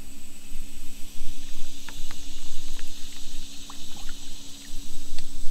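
A hooked fish splashing at the water's surface as it is reeled in close to the boat, with scattered short ticks over a steady high insect drone and a low hum.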